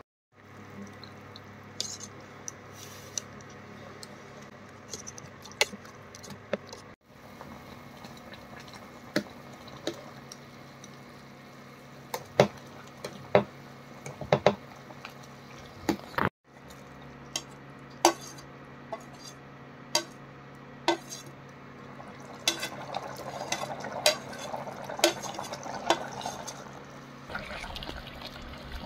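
Steel ladle clinking and scraping against a stainless steel pot while stirring chicken in its cooking liquid, the sound of the liquid thickening in the last several seconds. Under it, a steady low electrical hum from an induction cooktop. The sound cuts out briefly twice at edits.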